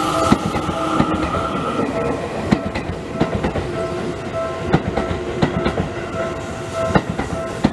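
Seibu 30000 series electric train passing over a level crossing, its wheels clicking over the rail joints, while the crossing's warning bell rings in a steady repeated tone.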